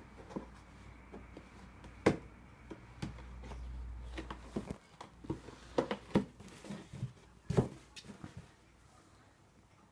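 Empty cardboard cereal box knocking and scraping as a cat plays with its head inside it: scattered irregular knocks, the sharpest about two seconds in and again near the end, with a quick cluster in between.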